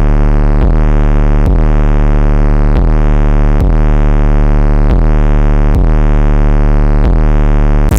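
Trap/bass track in a drumless breakdown: a loud, heavily distorted sub-bass synth note held on one low pitch and re-struck about every three-quarters of a second.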